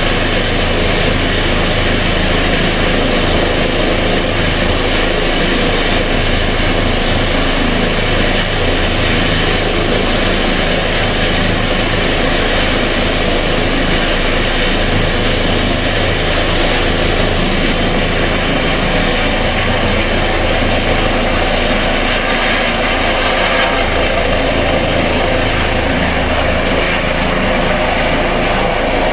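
Eurocopter EC135 T2i rescue helicopter running on the ground, its twin turboshaft engines, main rotor and Fenestron tail rotor making a steady loud noise. A high whine grows in the last few seconds as it takes off and hovers.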